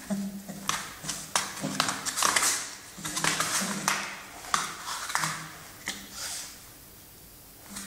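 Mastiff dog whining: short low whines repeated several times, with breathy sounds and light clicks in between. The whines stop near the end.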